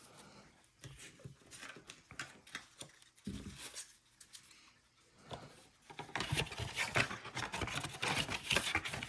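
Football trading card packs and cards being handled: a wrapper crinkling and cards rustling and sliding against each other, sparse at first, then busier and louder over the last few seconds.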